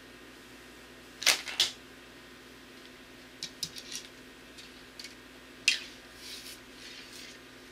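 Sharp clicks and knocks from a bow and arrow being handled. There are two loud ones close together about a second in, a cluster of lighter ones in the middle, and another loud one near the end.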